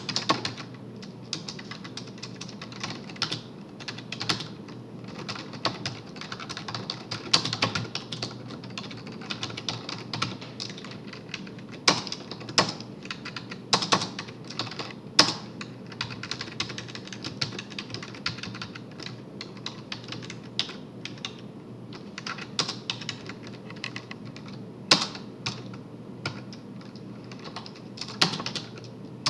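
Typing on a computer keyboard: irregular runs of keystrokes with short pauses and a few sharper single key taps.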